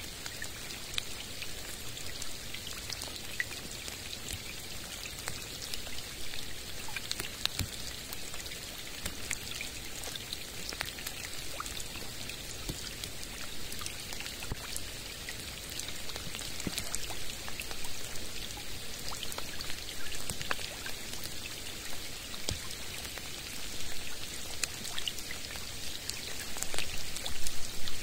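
Rain falling on a calm lake: a steady hiss of rain with many single drops plinking on the water, and a few louder drops near the end.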